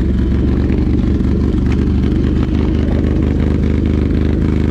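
Pit bike's single-cylinder four-stroke engine running steadily at low revs while riding slowly, loud and close to the microphone.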